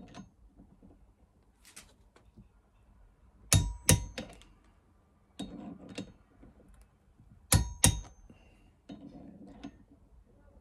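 Click-type torque wrench breaking at its set torque on a connecting rod bolt: sharp metallic double clicks about every four seconds, with softer scuffing of the wrench between. Each bolt is brought to torque more than once, so the wrench clicks again at the same setting.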